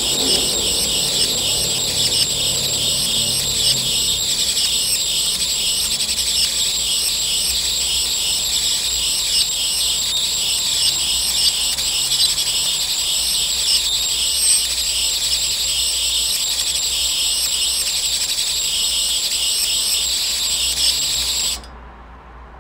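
High-voltage arc of a Jacob's ladder spark gap between two upright wires: a steady high-pitched buzz and crackle with irregular louder snaps. It cuts off suddenly near the end as the arc goes out.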